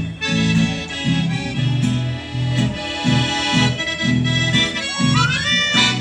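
Live accordion music, the accordion holding chords over a bass line that changes note a few times a second, with a short rising-and-falling glide about five seconds in.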